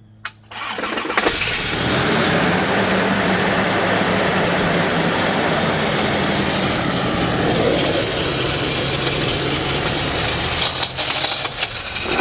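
Toyota 1GR-FE V6 engine starting about a second in, then running steadily with a noise that sounds really bad. The owner takes it for a lower-end problem in the freshly rebuilt engine.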